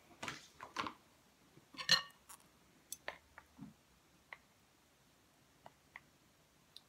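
Spoon and tableware clinking and knocking: a few short clicks in the first second, a sharp ringing clink about two seconds in, then sparse light taps as a spoon scoops from a plastic tub.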